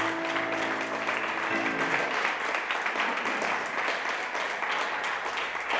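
Last grand piano chord ringing out, then audience applause from about a second and a half in.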